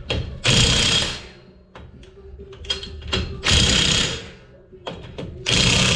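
Makita cordless impact wrench hammering in three short bursts of about a second each, driving down the nuts that hold a wheel spacer to the hub. Small clicks fall between the bursts.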